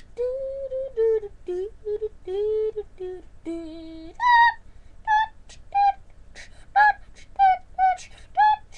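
Beatboxing by a young voice: vocal percussion mixed with pitched, sung notes. For the first few seconds the notes are held and glide, then they turn into short, higher notes about two a second with mouth clicks between them.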